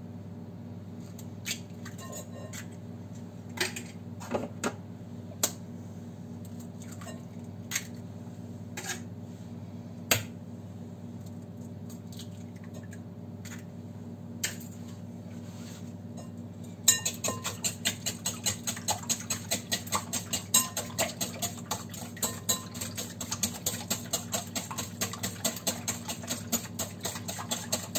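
Eggs beaten in a glass bowl with a wire whisk: rapid, even clinking of the wire on the glass at several strokes a second, starting a little past halfway. Before that, only a few scattered clinks on the bowl.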